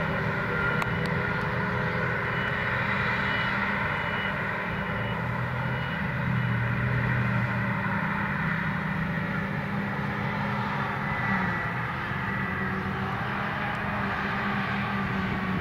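Claas Jaguar self-propelled forage harvester working under load, chopping grass and blowing it out through its spout, with the tractor hauling the trailer alongside. The engines give a steady drone over the rush of the chopping and blowing.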